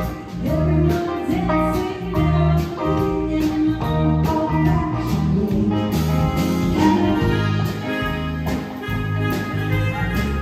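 Live band playing, led by an electric guitar, with a steady beat.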